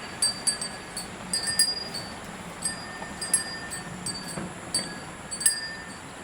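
Irregular light metallic clinks with a brief ringing, about one or two a second, over a steady background hiss.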